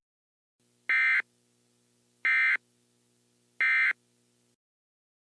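Emergency Alert System end-of-message signal: three short bursts of SAME digital data tones, about a second and a half apart, marking the close of the alert.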